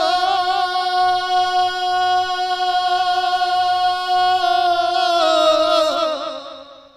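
A man singing a naat unaccompanied into a microphone, holding one long high note for about five seconds, then letting it waver and fade out.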